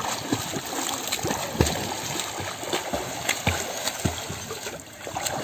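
Floodwater splashing and sloshing, with small irregular splashes as people move through it.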